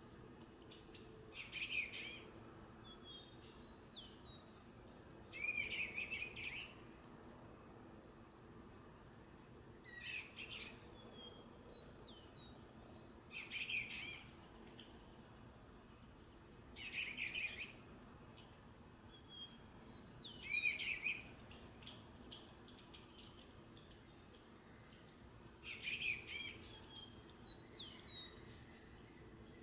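Male eastern bluebird singing short phrases of soft notes, one every three to four seconds, with fainter higher chirps in between.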